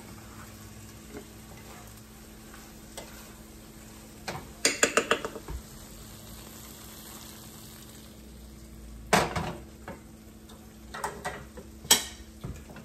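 Wooden spatula stirring and knocking against a sauté pan of chicken, mushrooms and zucchini over a faint sizzle as the cornstarch sauce thickens. A quick run of strokes about five seconds in, and louder clatters of the pan near nine and twelve seconds.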